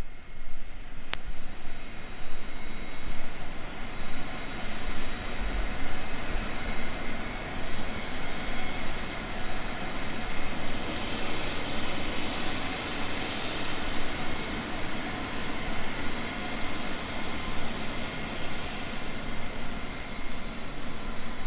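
Boeing 747 jet engines running steadily: a dense rushing noise with a high turbine whine that grows stronger in the middle.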